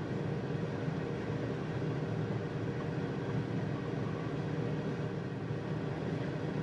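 John Deere 9500 combine running steadily while harvesting corn, heard from inside the cab: an even, unbroken drone of engine and threshing machinery.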